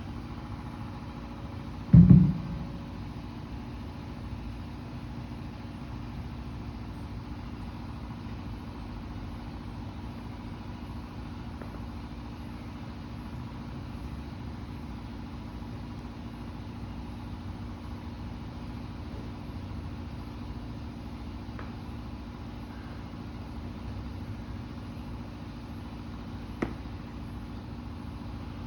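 A steady mechanical hum with a few held tones, broken about two seconds in by one heavy thud, the loudest sound, and by a small click near the end.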